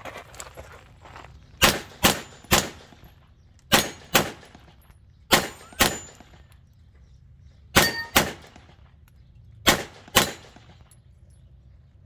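Handgun fired in quick pairs, about eleven shots in all, with a short metallic ring after some of them.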